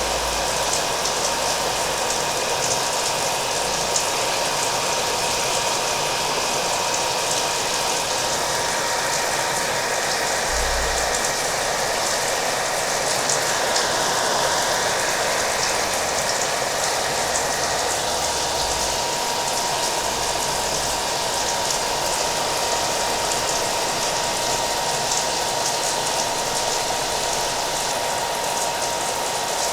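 A hair dryer running steadily, with a thin, constant motor whine, mixed with the steady patter of rain.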